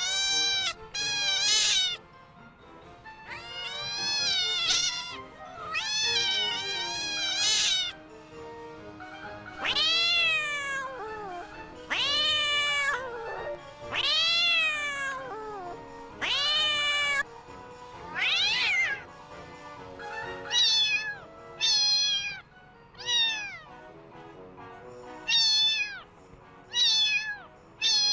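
Cat meowing over and over: long, drawn-out meows that rise and fall in pitch, then shorter, quicker meows in the second half, over faint background music.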